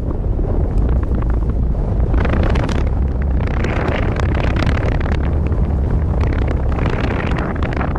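Wind buffeting the microphone during a fast ski descent, a heavy steady rumble, with skis hissing over the snow in swells that come and go every second or two as the skier turns.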